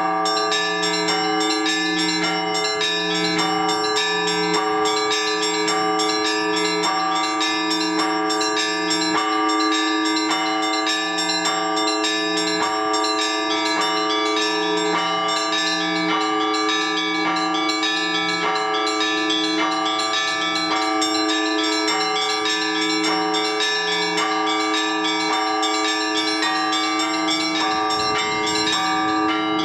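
Orthodox church bells rung together by a bell-ringer in a continuous dense peal, with the higher bells struck rapidly over a low bell sounding about once a second.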